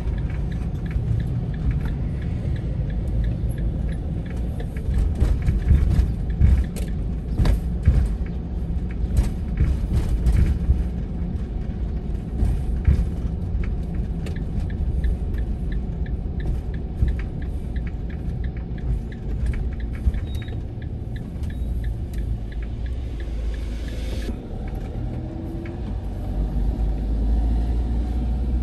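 Road noise inside a moving vehicle: a steady low rumble of engine and tyres, with scattered light clicks and rattles. The rumble grows louder near the end.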